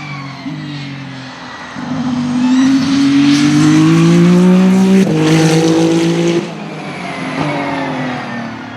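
Ferrari track car accelerating hard past the listener: the engine note climbs steadily, jumps abruptly about five seconds in, then drops away sharply about a second and a half later.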